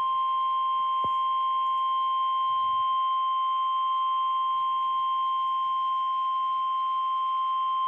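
NOAA Weather Radio 1050 Hz warning alarm tone, sounding for the weekly test: one steady, unbroken high tone, heard through a weather radio receiver.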